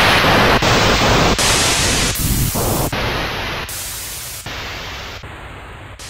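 Static noise on an intro card: loud hiss that changes its tone abruptly about every three quarters of a second, in a run of blocks that slowly fade.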